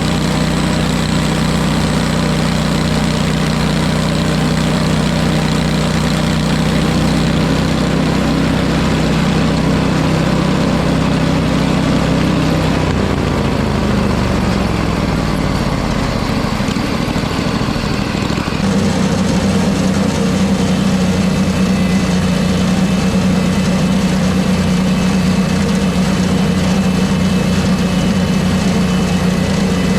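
An engine running steadily. Its pitch slides down about halfway through, and a few seconds later it settles into a steady, stronger hum that runs on.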